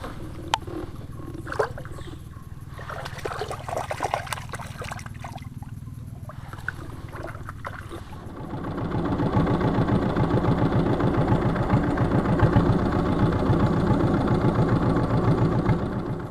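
Small boat engine running with a steady low pulse, with knocks and rattles over it in the first half. About eight seconds in, the engine grows much louder, as if it is revved or coming close.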